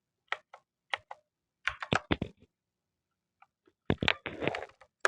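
Keystrokes on a Gamen Titan 2 mechanical keyboard: a few single key clicks, then a quick run of presses about two seconds in and another cluster near the end.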